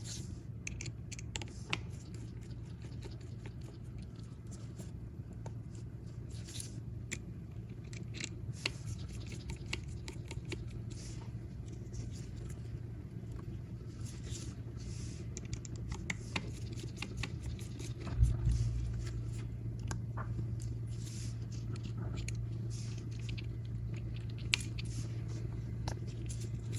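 Small scattered clicks and light scrapes of tools and phone parts being handled during an iPhone screen removal, over a steady low hum. There is a louder knock about eighteen seconds in, and the hum is stronger after it.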